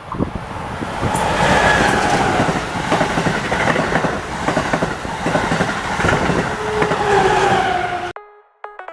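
MBTA train passing close by: a loud, steady rumble of wheels on rail with a whining tone that falls in pitch near the end. It cuts off abruptly.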